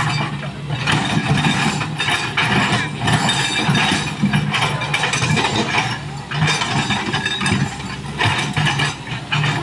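An excavator's diesel engine running steadily, with irregular scraping and knocking noises over it.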